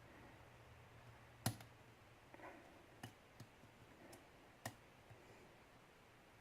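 A hook pick clicking against the pins inside a Yale pin-tumbler lock held under tension, while the picker searches for the binding pin. There are about five small, sharp ticks spread out over a few seconds, the loudest about one and a half seconds in, with a faint scrape between them.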